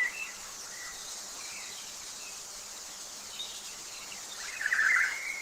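Nature ambience: a steady high hiss like insects, with faint scattered bird chirps and a louder flurry of chirping near the end.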